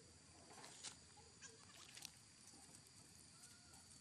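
Near silence: faint outdoor background with a steady high-pitched hum and a few soft clicks and rustles.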